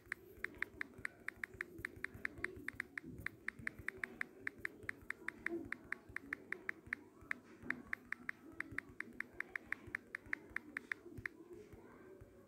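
Rapid typing on a smartphone's on-screen keyboard: a steady stream of short key-press clicks, about five a second, broken by a couple of brief pauses.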